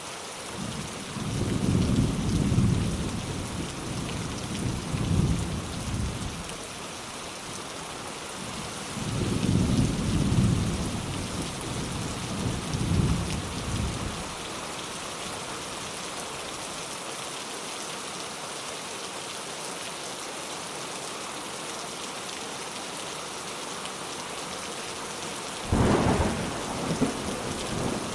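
Steady rain with thunder: two long, low rolls of thunder in the first half, then a sharper crack of thunder near the end.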